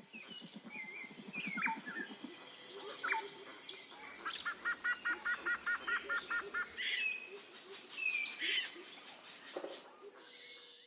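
Forest birdsong ambience: several birds chirping and whistling, with one bird giving a quick run of about a dozen repeated notes around the middle.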